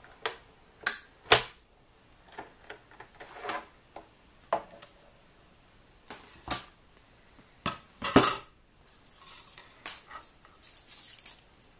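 Hard plastic cutting plates of a die-cutting machine clacking and knocking as they are handled and separated after a pass, a dozen or so sharp knocks at uneven intervals, the loudest a little over a second in and another about eight seconds in.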